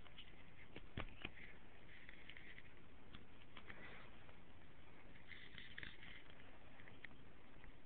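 Soft scratching and scattered light ticks on a fabric blanket from a kitten playing, with a couple of sharper ticks about a second in, over a steady hiss.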